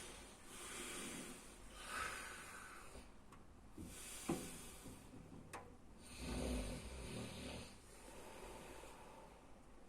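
A sleeping person snoring: slow, irregular breaths, with a short snort near the middle and the loudest snore about six and a half seconds in.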